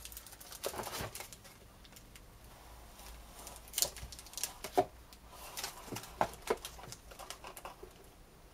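Crinkling and rustling of a clear plastic bag holding a flat sheet of model-kit parts as it is handled and laid into a cardboard box, with scattered light clicks and taps; the sharpest crackles come around the middle.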